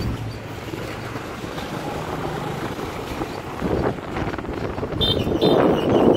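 Motorbike riding along a rough mountain road, its engine running low under rumbling road and wind noise, with a swell of wind buffeting the microphone near the end.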